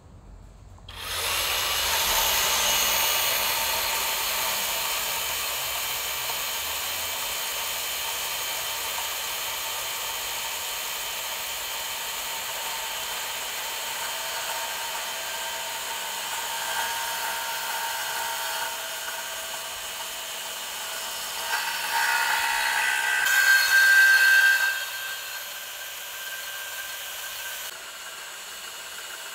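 Hilti SB 6-22 cordless deep-cut band saw starting up about a second in and cutting through a metal strut channel, a steady high-pitched sawing whine. It grows louder with a sharper squeal around twenty-two to twenty-four seconds in, then eases off.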